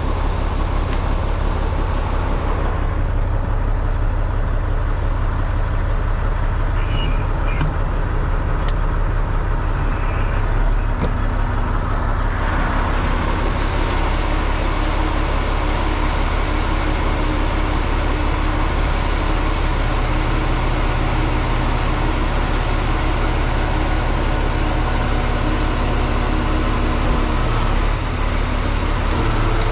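Semi truck's diesel engine running steadily while it powers the hydraulic hoist raising a dump trailer's bed. A steady hiss joins in about twelve seconds in and carries on.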